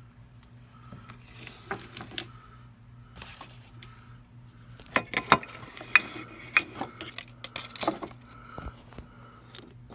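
Irregular clicks, knocks and light rattles of a GE alarm clock being handled, sparse at first and thickest in the second half, over a low steady hum.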